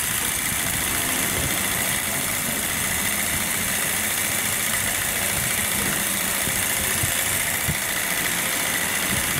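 Bosch ASB10.8LI cordless grass shear running steadily with a high whine, its battery-powered motor driving the oscillating blades as they cut grass.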